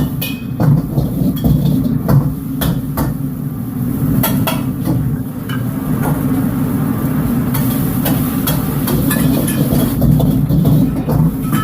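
Commercial wok burner running with a steady low rumble, while a metal ladle knocks and scrapes against the wok at irregular intervals.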